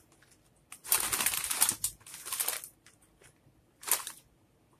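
Foil-lined snack bag crinkling as it is handled: about two seconds of rustling starting about a second in, then one short crinkle near the end.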